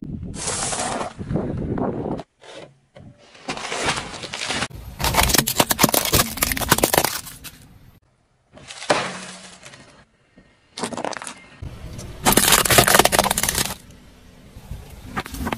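Brittle objects being crushed under a car's tyre: dense crackling and snapping, in several short stretches that cut off abruptly one after another.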